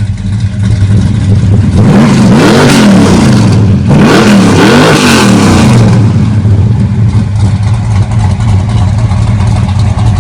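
Supercharged 440 V8 of a 1969 Dodge Charger idling, revved twice in quick succession about two and four seconds in, each rev rising and falling in pitch before it settles back to idle.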